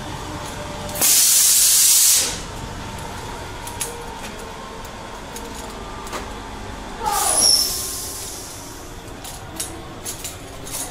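Two loud hissing blasts of gas from haunted-house scare effects: one lasting about a second near the start, and a shorter one about seven seconds in with a whistle falling in pitch.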